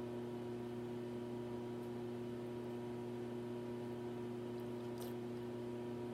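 A steady low hum made of a few held pitches over a light hiss, with one faint click about five seconds in.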